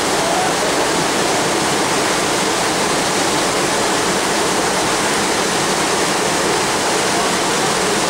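Waterfall on a rocky mountain river: a steady, even rush of falling and running water.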